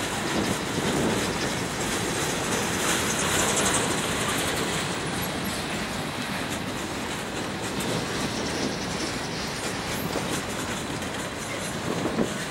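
Manifest freight train's cars rolling steadily past, steel wheels running over the rail joints.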